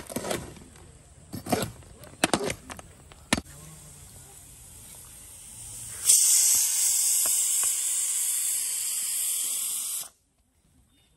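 A few sharp knocks, then a loud steady hiss from a large steel pot of freshly cooked dum biryani as it is stirred with a ladle. The hiss lasts about four seconds and cuts off suddenly.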